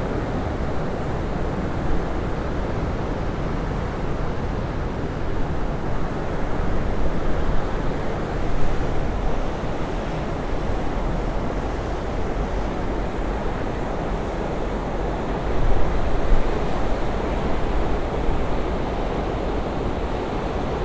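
Pacific Ocean surf washing onto a sandy beach in a steady rush, with wind buffeting the microphone. The surf swells louder twice, about a third of the way in and again near the end.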